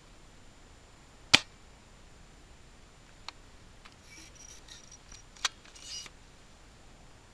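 One loud, sharp click about a second in, then a few fainter clicks and a short rustle of grass brushing past between about four and six seconds in.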